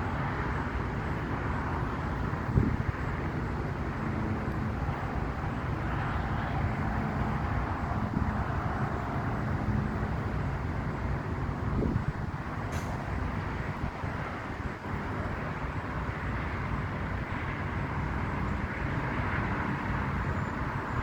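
Steady traffic noise from vehicles on a nearby road, a continuous even rush with a low rumble and no distinct events.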